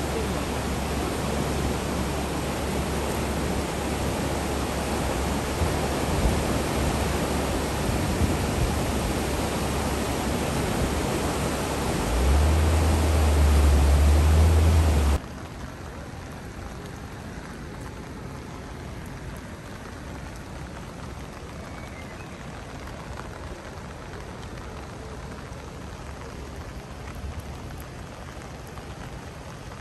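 Steady rushing of a river in flood, its brown water running high and fast, with a low rumble underneath that swells from about twelve to fifteen seconds in. About fifteen seconds in the sound cuts off abruptly to a quieter, even hiss of rain falling on standing floodwater.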